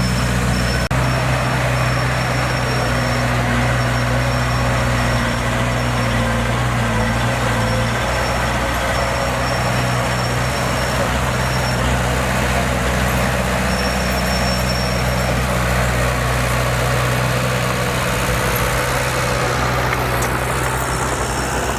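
Diesel engine of a heavy earthmoving machine running steadily at constant speed, with a faint high whine coming and going.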